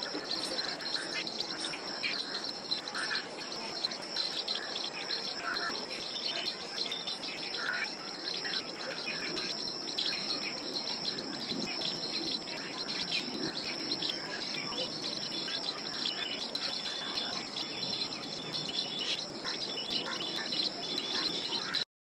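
Outdoor ambience of a steady, high-pitched insect chorus, with scattered short bird calls over it. It cuts off suddenly near the end.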